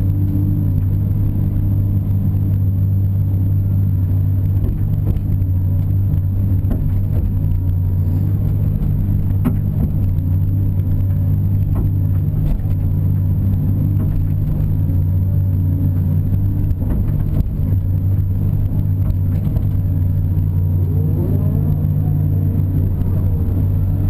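Caterpillar 330 excavator's diesel engine running steadily as the machine digs, swings and dumps dirt, heard from inside the operator's cab.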